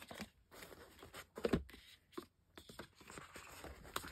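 Light rustling of paper and card with a scatter of soft taps and clicks as album postcards and photocards are handled, the loudest tap about a second and a half in.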